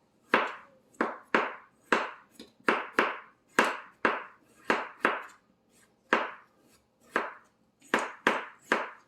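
Kitchen knife cutting through canary melon and striking the cutting board beneath: about fifteen sharp chops at an uneven pace, roughly two a second.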